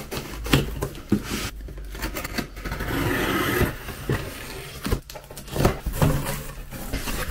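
Packing tape on a cardboard box being slit along its seam: a steady scraping rasp lasting about a second near the middle, among scattered knocks and rustles of cardboard, then the flaps being pulled open near the end.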